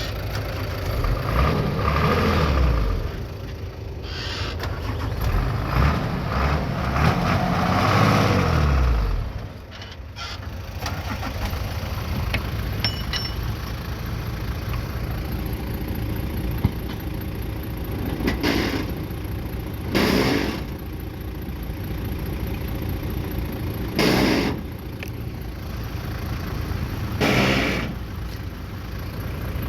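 Bulldozer engine under load, its pitch rising and falling for the first nine seconds, then running steadier. Four short, loud noises break in over the second half.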